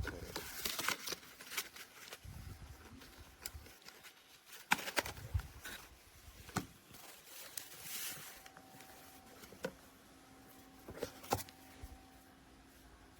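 Handling noises: scattered clicks, taps and short rustles of small plastic parts and packaging being picked up and set down.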